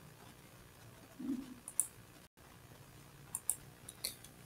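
A few computer mouse clicks, short and sharp over a faint steady hiss: one about two seconds in, then a quick pair and another near the end. A brief low sound comes about a second in.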